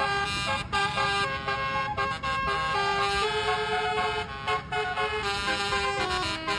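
Basuri telolet musical horn, a set of horn trumpets playing a tune: several tones sound together and step from one held note to the next, with brief breaks between phrases.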